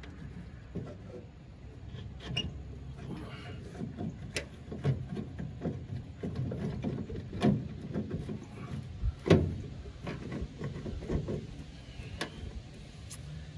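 Hand work on a brake master cylinder: irregular clicks and knocks of tools and metal parts being handled, with a few short squeaks. The sharpest knock comes a little past the middle.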